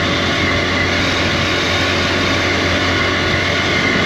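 Steady running noise of a 110cc motorcycle being ridden: a constant engine drone under an even rush of wind.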